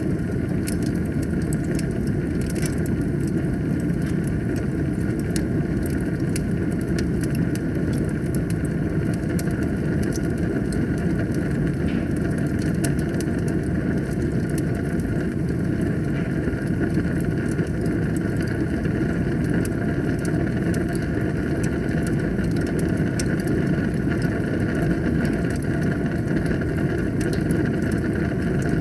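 Wood fire burning in a fireplace: a steady low roar of flames with frequent sharp crackles and pops throughout.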